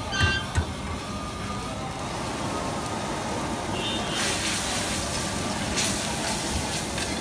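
A steel ladle clinks against a metal bowl and a wok, with a short metallic ring just before the gravy is stirred. About four seconds in, the ladle works through the simmering chicken shashlik gravy in a hot steel wok and a sizzling hiss rises. A steady rumbling background runs under it all.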